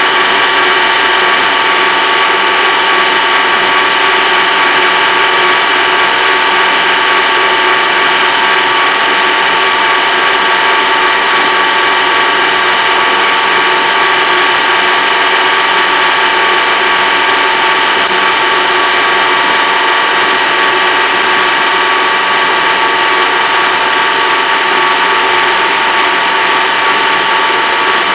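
Farm tractor driving at a steady speed on the road, heard from inside its closed cab: a constant mechanical whine from the drivetrain over the engine's running noise.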